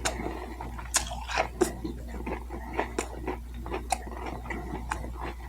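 Close-miked chewing of a boneless chicken nugget: wet mouth smacks and crunchy clicks at an uneven pace.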